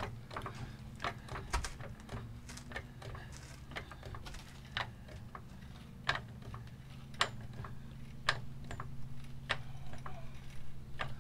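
Hydraulic floor jack being pumped to lift a pickup truck: a short sharp click with each stroke of the handle, roughly one a second, over a low steady hum.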